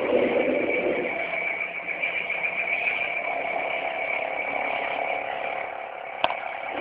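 A steady, metallic-sounding droning hum of the kind reported as a mysterious "strange sound in the sky": a held high tone over a lower drone, which swells in the first second. A single sharp click comes near the end.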